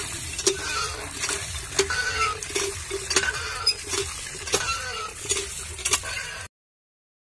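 Water from a hand pump pouring and splashing onto chicken skin in a plastic colander as a hand rubs it clean, with the pump handle clanking and squeaking on each stroke, about one stroke every 0.7 s. The sound cuts off suddenly near the end.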